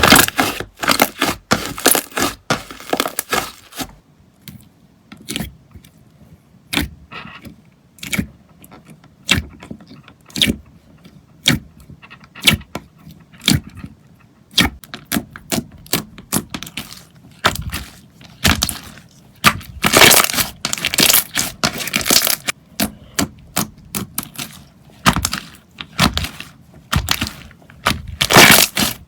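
Slime being squeezed and pressed by hand, making irregular sharp crackles and clicks. These come in dense clusters at the start and again about two-thirds through, with sparser clicks between.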